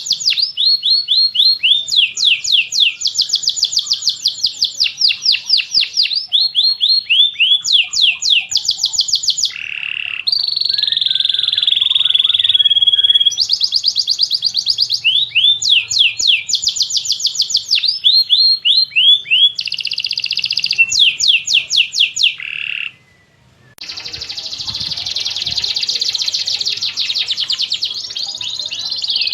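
Domestic canary singing a long, unbroken song of fast trills and rolling phrases, quick high notes repeated several to many times a second. There is a short break of about a second roughly three-quarters of the way through, then the song resumes.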